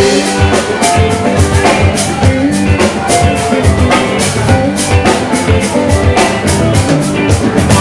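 Live band playing an instrumental passage: a drum kit keeping a steady beat with quick, regular cymbal strokes over bass and guitar.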